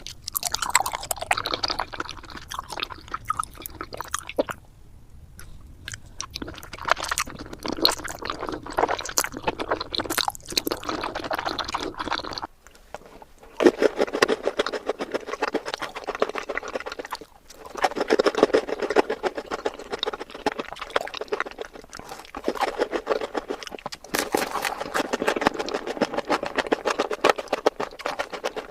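Close-miked chewing of sweets: wet, sticky mouth and chewing sounds in long runs of fine clicks, pausing briefly about five seconds and thirteen seconds in.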